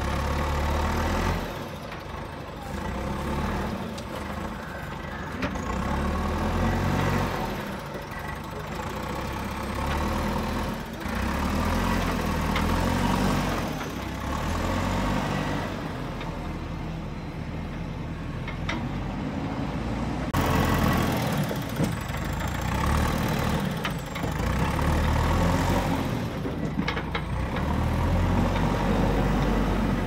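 JCB 3DX backhoe loader's diesel engine running under load, revving up and easing off every few seconds as the machine lifts and carries dirt.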